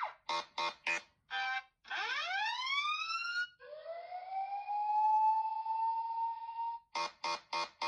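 Electronic alert tones played one after another from a phone's speaker, as ringtone previews: three short beeps, a brief tone, a fan of rising sweeps, then a long tone that rises and holds for about three seconds, and a fast run of beeps near the end.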